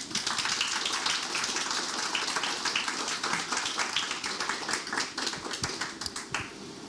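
Audience applauding: a dense patter of hand claps that starts suddenly and thins out near the end.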